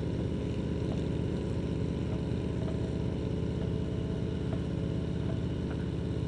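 Motorcycle engine running steadily at cruising speed, heard from the rider's own seat, with an even note that neither rises nor falls.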